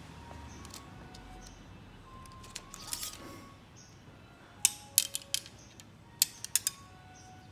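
Sharp clicks and taps of an arrow being handled on a recurve bow, its shaft knocking against the riser and arrow rest as it is set in place: a quick run of about four clicks, then three more a second later. Faint music plays underneath.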